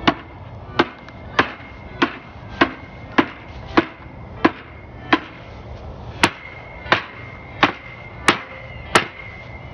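Hammer blows on the top rail of a wooden hogwire fence panel frame, driving the panel down into the dado grooves of the fence posts. About fourteen steady strikes, roughly one every two-thirds of a second.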